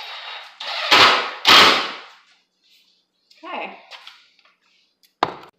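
Cordless drill driving a screw into plywood: the motor whirs, then two loud bursts of rapid clattering as the screw is driven home. A single sharp knock comes near the end.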